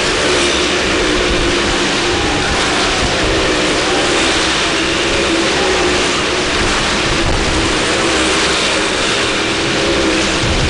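Car engines running at steady, high revs as several cars drive around the vertical wall of a well-of-death pit: a loud, continuous engine noise with no let-up.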